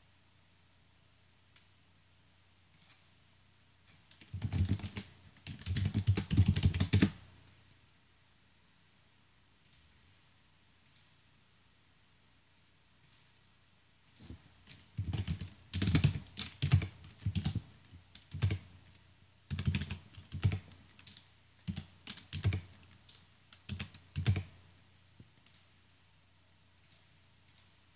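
Typing on a computer keyboard: a short quick burst of keystrokes about four seconds in, then a longer run of typing in short bursts from about halfway until near the end.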